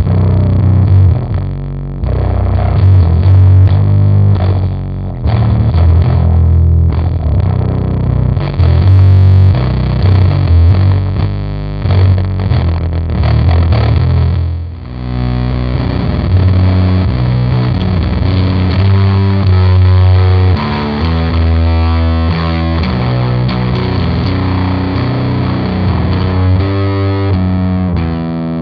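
Heavily distorted riffs played through a Catalinbread SFT overdrive pedal, with a strong, heavy low end. About halfway through, a brief dip gives way to more separate, clearly pitched notes.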